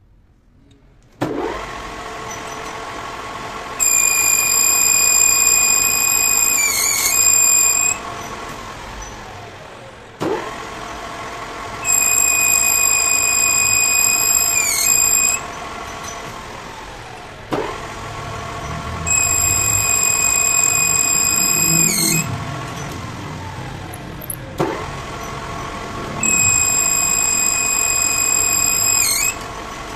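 Metal lathe started four times, the motor spinning up each time into a steady whine. During each run the cutting tool on the spinning metal sleeve gives a loud, high-pitched squeal for about three to four seconds.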